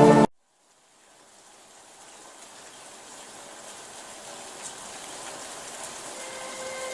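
Music cuts off abruptly right at the start, then after about a second of silence steady rainfall fades in, growing gradually louder. Near the end a held pitched tone joins it.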